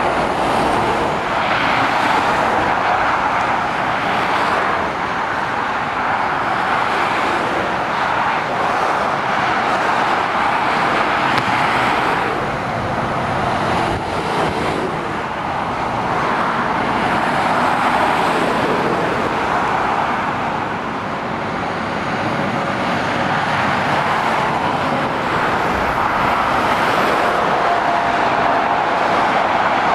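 Motorway traffic: a steady rush of tyres and engines from articulated lorries and cars driving past, rising and easing as each vehicle comes by.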